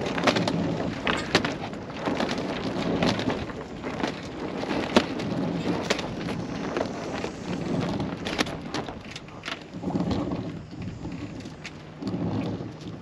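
Wind buffeting the microphone on a sailboat's deck, with irregular sharp snaps and rustles from the partly hoisted mainsail flapping loose.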